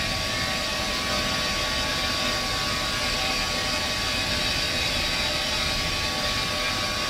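Steady industrial machinery drone from a waste-processing and paper plant, an even rushing roar with faint steady hums mixed in.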